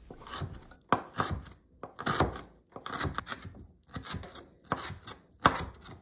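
Global chef's knife chopping kimchi on a wooden cutting board: a string of uneven knocks, roughly two a second.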